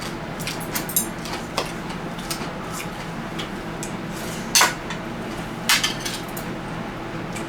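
Eating utensils clicking and tapping against a dish during a meal: scattered light clinks, with the sharpest two about four and a half and nearly six seconds in.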